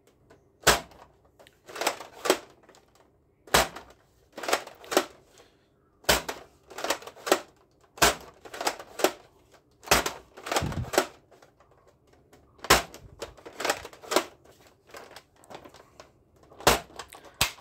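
Hard plastic clicks and clacks from a Nerf Mega DoubleBreach toy blaster being handled and its mechanism worked: sharp single and paired clicks at irregular intervals, about one or two a second.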